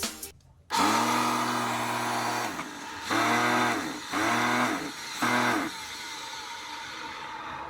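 Kärcher vacuum cleaner motor switched on and off four times, a longer run of about two seconds then three short ones. Each rises in pitch as it spins up and drops as it cuts out, and a lower steady hum is left in the last couple of seconds. This is the vacuum the owner says is making a strange noise.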